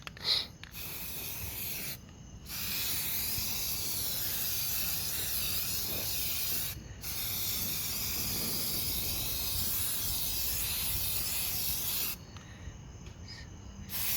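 Aerosol spray can of primer paint hissing in long sprays, with brief pauses about 2 and 7 seconds in and a pause of about two seconds near the end.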